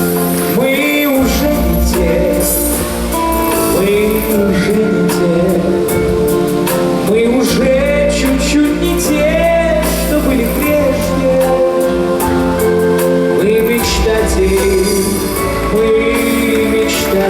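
Song music with a steady bass and a melody line that bends in pitch.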